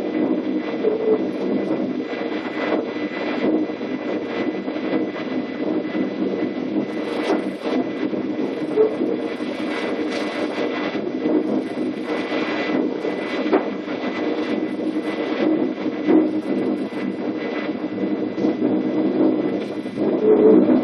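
Running noise of a DB class 420 electric S-Bahn train heard from inside the driver's cab: a steady hum and rumble from the motors and wheels on the rails, with occasional short knocks over rail joints and points.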